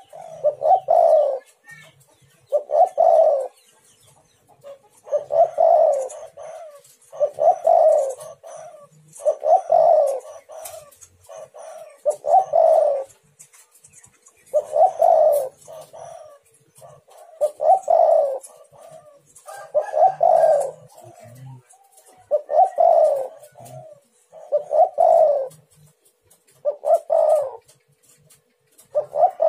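Spotted dove (tekukur) cooing, one phrase roughly every two seconds.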